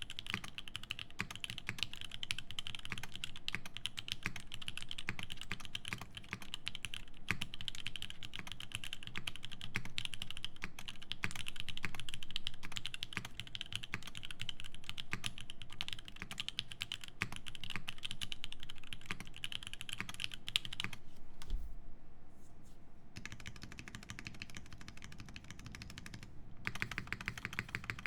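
Fast typing on a Tsukuyomi mechanical keyboard with lubed Alpaca linear switches on a carbon-fibre plate under GMK keycaps: a dense, continuous stream of keystroke clacks. About three-quarters of the way through, the typing stops for about two seconds, then resumes.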